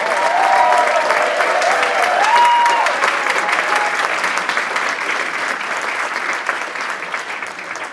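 Audience applauding with dense, steady clapping that tapers slightly toward the end.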